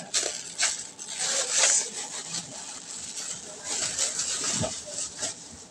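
Clothes being loaded into a washing machine: irregular rustling and scraping of fabric against the tub, with a few light knocks.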